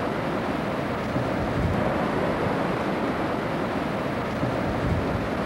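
Ocean surf washing onto the beach, mixed with wind buffeting the microphone: a steady rushing noise with an unsteady low rumble.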